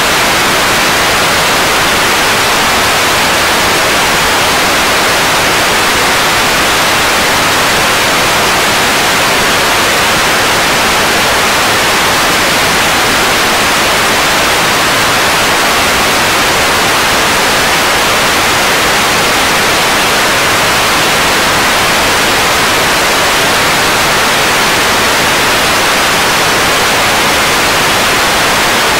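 Loud, steady hiss of static that does not change.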